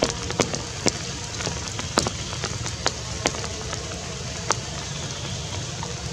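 Steady outdoor background noise with a low rumble, broken by scattered sharp ticks at irregular intervals, several in the first two seconds and a last one about four and a half seconds in.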